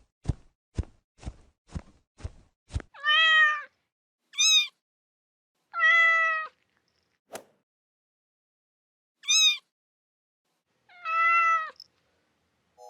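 A cat meowing six times, some calls low and drawn out and others short and much higher. Before the first meow come six short taps, about two a second.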